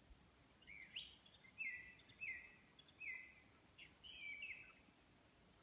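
A songbird singing a phrase of clear whistled notes: a quick upward sweep, then three similar falling notes about two-thirds of a second apart, then a longer two-part note, with a faint hiss of background noise behind.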